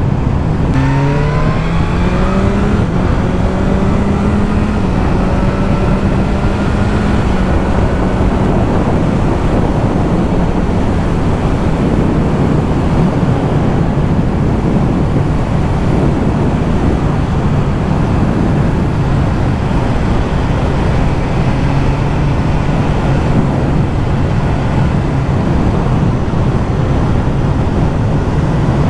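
BMW S1000R inline-four engine pulling hard through a couple of quick upshifts in the first few seconds, then running at a steady cruising speed under heavy wind rush, its note easing slightly lower as the ride goes on.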